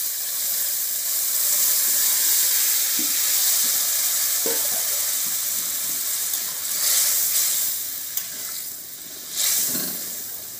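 Boiled bottle gourd greens and potatoes, with their cooking water, poured into hot mustard-oil spice paste in a kadai and sizzling hard, the sizzle slowly dying down. A spatula stirs the pan near the end, with a few light knocks.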